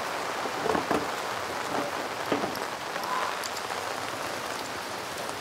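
Steady rain falling and pattering on paving and outdoor café parasols, with a few short knocks about a second in.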